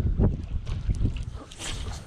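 Wind buffeting the microphone in a low rumble, over water washing against the rocks, with a brief rustle near the end.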